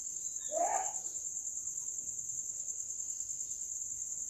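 Steady high-pitched chirring of crickets, with a fine rapid pulse, and a short soft sound under a second in.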